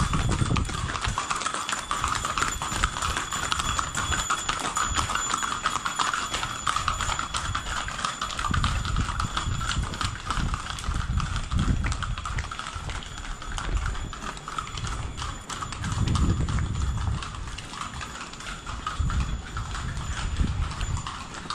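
Hooves of laden pack animals clip-clopping at a walk on a concrete lane, a steady run of hoof clicks.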